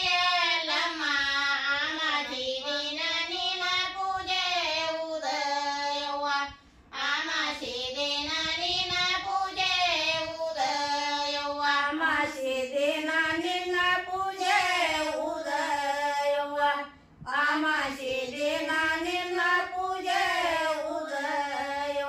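A group of women singing a North Karnataka Kannada folk devotional song together, without instruments, in long melodic phrases with two short breaks between lines.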